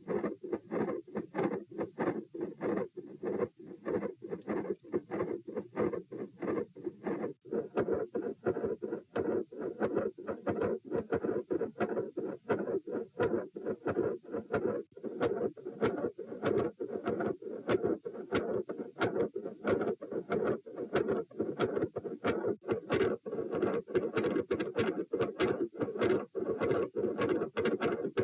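Human heart sounds recorded over the pulmonic area with the subject sitting: a fast, even run of short thuds and clicks without a break. The uploader notes fixed splitting of the second heart sound, with extra sounds and clicks.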